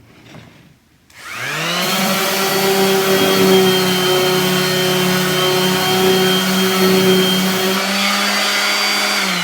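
DeWalt variable-speed orbital sander switched on about a second in, spinning up within about a second and then running steadily. It is running properly again after its broken drive belt was replaced.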